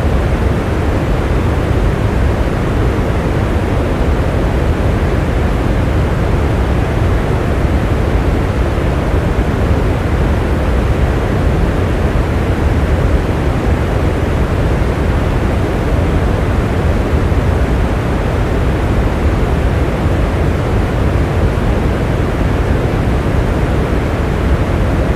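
Steady heavy rain: a dense, even rushing noise, deeper than it is bright, with no single drops or other sounds standing out.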